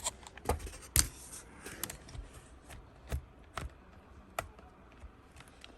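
Irregular sharp plastic clicks and taps from a Toshiba Satellite C55 laptop being handled and pressed, about one every half second to a second.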